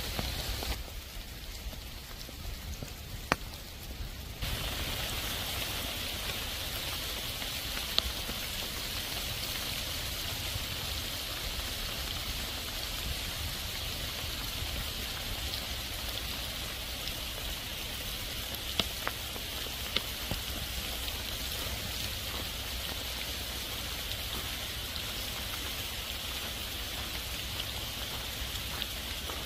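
Heavy rain pouring down on leaves and ground: a steady hiss with a few sharper drop ticks, dipping briefly about a second in before returning full.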